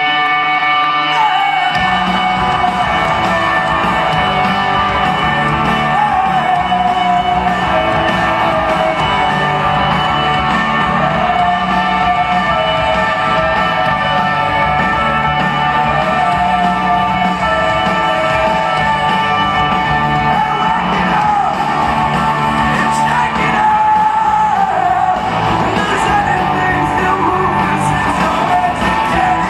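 Live rock band playing at full volume: electric guitars, bass and drums, with a sung melody over them. A held guitar chord opens, and the full band kicks in about two seconds in.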